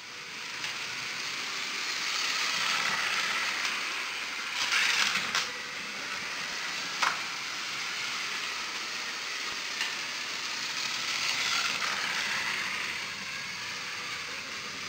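Lego trains running on plastic track: a steady rattling whir of wheels and motors, with a few sharp clicks, the clearest about seven seconds in.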